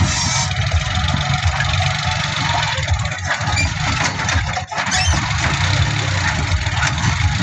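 Tractor loader's engine running steadily with a low, fast-pulsing rumble, with one brief dropout a little past the middle.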